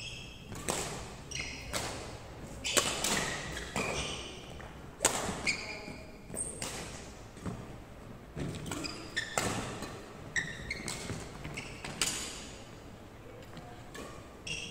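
Badminton rackets striking a shuttlecock in irregular sharp hits, from this and neighbouring courts, with sports shoes squeaking briefly on the wooden court floor.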